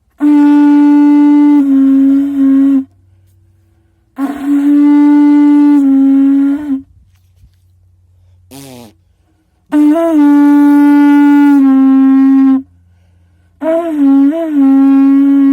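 Natural animal blowing horn played with the player's hand inside the bell, giving a lower, muted tone. Four long blasts on one steady low note, each lasting two to three seconds, with a brief falling squawk between the second and third.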